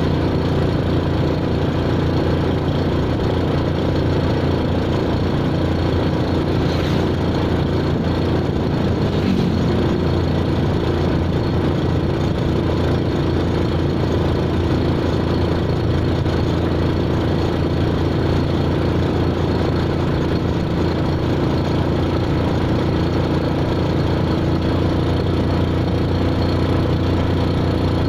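An engine running steadily at an even speed, a constant low drone.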